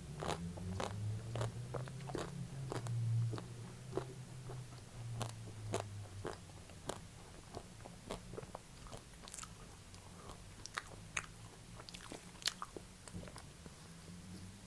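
Close-up biting and chewing of chocolate-coated ice cream: many small, crisp crunches and mouth clicks as the hard coating cracks. A low hum sits underneath, strongest in the first half.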